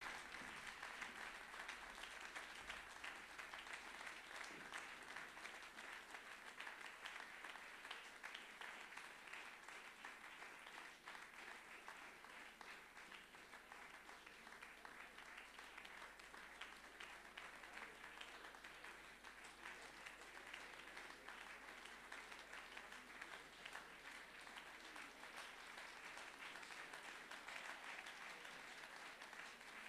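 Audience applauding, faint and steady.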